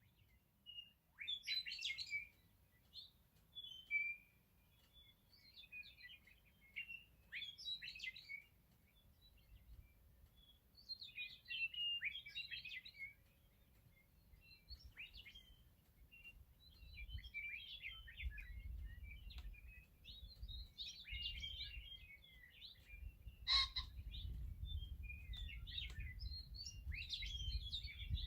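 Western meadowlarks singing: short phrases of quick, sliding, flute-like notes repeated every few seconds. A low rumble rises under the song in the second half, and there is one sharp click near the end.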